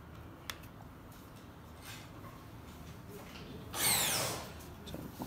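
A power tool runs in a short burst of under a second about four seconds in, its high whine falling in pitch as it winds down, over faint room noise.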